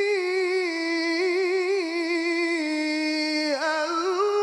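A man's solo voice chanting the Qur'an in melodic mujawwad style, drawing out the long vowel of "kitaban" in one sustained melisma with fast ornamental trills. The phrase steps down in pitch a little over halfway through, then dips and rises again near the end.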